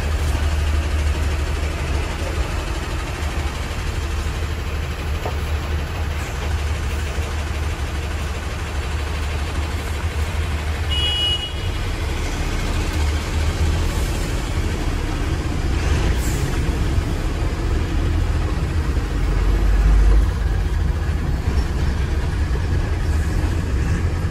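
Tata truck's diesel engine running under way at highway speed, a steady deep rumble with road noise, heard from inside the cab. The rumble swells briefly about twenty seconds in.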